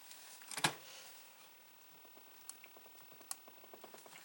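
Hands handling the parts of a floppy disk drive during disassembly: a sharp knock about half a second in, then a run of light clicks and ticks.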